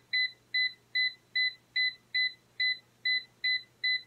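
Digital air fryer's touch control panel beeping as its temperature is stepped down. About ten short, identical high beeps in an even run, roughly two and a half a second.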